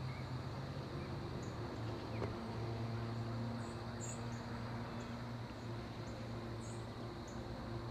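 Outdoor field ambience: a steady high drone of insects with short high chirps about once a second, over a low steady hum.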